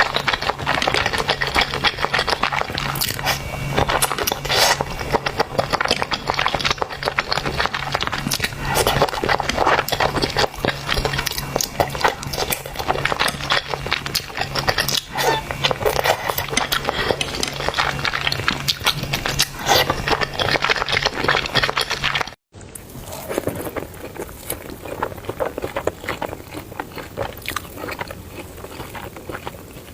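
Close-miked eating of spicy noodles: a dense run of wet mouth clicks and chewing sounds. It cuts out for a moment about two-thirds of the way through, then goes on a little quieter.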